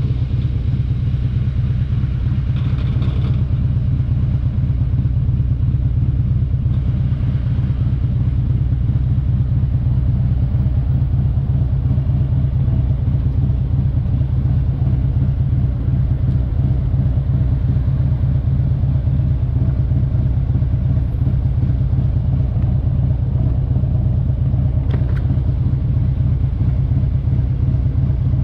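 Harley-Davidson V-twin motorcycle engine running with a low, steady rumble, rolling slowly at first and then idling while the bike sits stopped.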